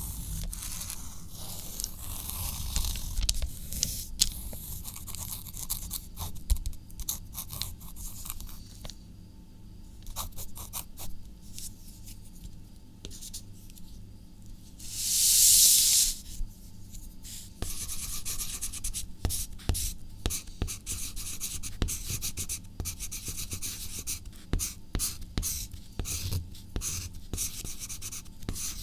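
Writing on paper: many quick, scratchy strokes of a writing tip across the sheet. The strokes thin out and grow quieter for a few seconds near the middle, where one louder scratch about a second long stands out, then pick up again densely.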